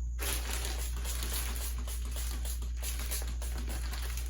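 Disinfectant being sprayed to sanitize a parcel: a steady hiss that starts suddenly, over a constant low hum.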